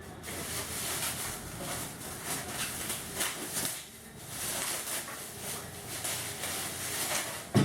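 Crinkly rustling and handling of polythene packaging wrap, in uneven bursts, as parts are unpacked.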